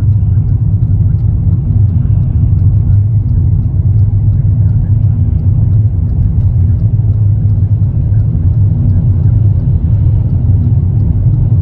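Road noise inside a moving car's cabin: a steady low rumble of engine and tyres at highway speed.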